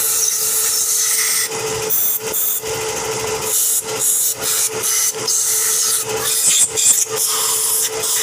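Compressed air from a blow gun hissing in many short, rough bursts as it is forced through the passages of a clogged carburetor body to clean them out, with a faint steady tone underneath.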